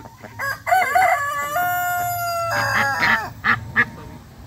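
About a second in, a rooster crows once, a call of about two and a half seconds that settles into a long held note. Ducks quack a few short times after it.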